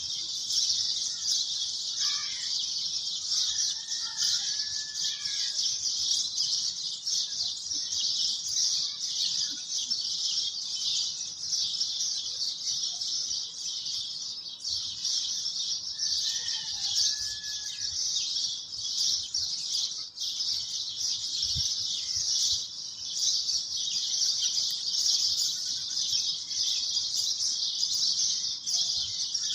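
Steady high-pitched chorus of chirping insects, with a few faint bird chirps a few seconds in and again a little past the middle.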